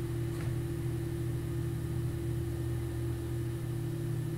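Steady low background hum of a few fixed tones, unchanging throughout, with no speech.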